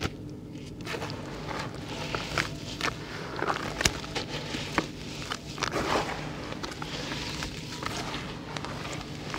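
Hands crushing crunchy grey lumps of dry earth into water in a bucket and kneading them into mud: irregular crunches and crackles mixed with wet mashing, busiest about four and six seconds in.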